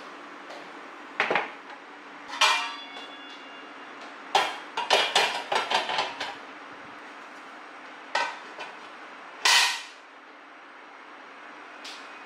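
Sharp metallic clanks and clatter of barbecue gear being handled on a small metal charcoal fire stand. The clanks come singly and in a quick run of rattles midway, and one of them rings briefly.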